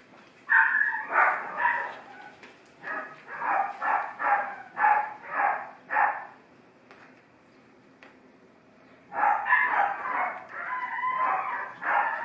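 Five-week-old puppies barking and yelping in play, high and yappy: a short flurry about half a second in, then a string of about seven barks roughly two a second, a pause, and a denser run of yaps near the end.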